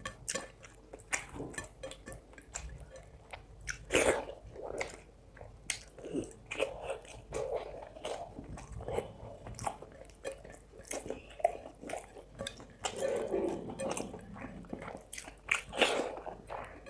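Close-up mouth sounds of a person eating rice and fish curry: wet chewing and smacking with many small sharp clicks, a few louder bites about four seconds in and near the end.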